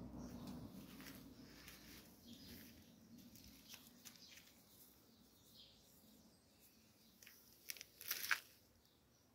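Faint rustling and handling of the thin dress fabric and the lighter in hand, with a few sharp scratchy clicks close together about eight seconds in.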